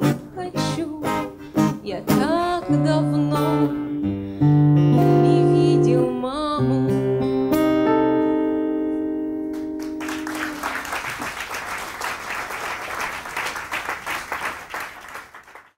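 Man and woman singing the closing line of a song with acoustic guitar, slowing into long held final notes. About ten seconds in, audience applause takes over and is cut off abruptly near the end.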